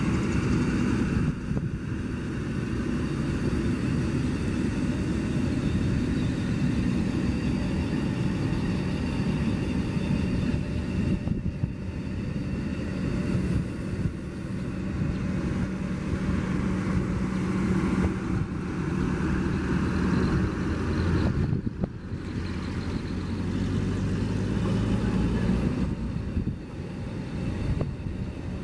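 Electric high-speed Comprehensive Inspection Train (CIT) rolling past under its own power from the overhead catenary, not pushed by a locomotive: a steady low rumble of wheels on rails with a low steady hum.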